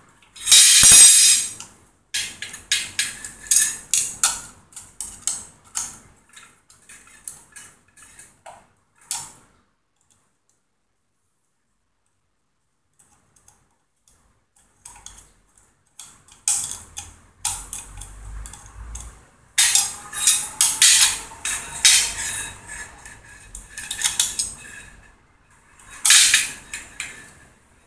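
Aluminium extrusion bars and loose metal parts clinking and rattling as a frame is handled and fitted together by hand, in irregular bursts of sharp clicks with a pause of a few seconds midway.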